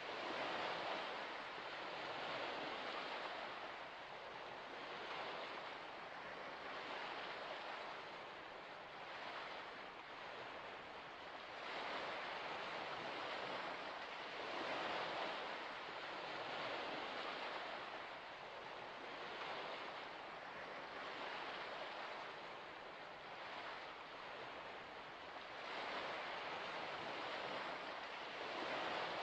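Small wind-driven waves lapping at the shore of a shallow salt lake: a soft wash that swells and fades every few seconds.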